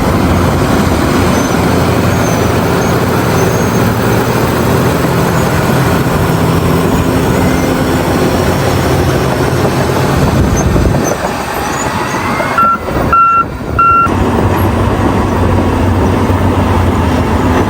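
Heavy diesel bulldozer engine running steadily under load. Near the middle it eases off, and three short backup-alarm beeps sound about 13 seconds in before the engine noise resumes.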